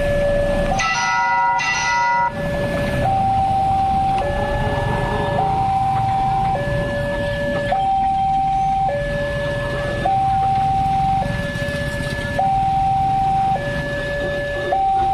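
Railway level-crossing warning alarm sounding a two-tone electronic signal that alternates steadily between a higher and a lower note, each held about a second, while the crossing barrier lowers. For the first couple of seconds extra higher chime notes are layered over it. Traffic rumbles underneath.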